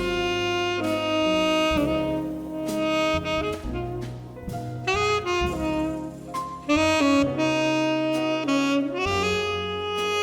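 Saxophone playing a slow jazz ballad melody in long held notes, backed by a jazz band with bass and light drums.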